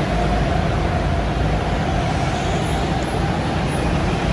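Steady mechanical drone with a constant hum in an indoor go-kart arena, with no clear change in pitch or level.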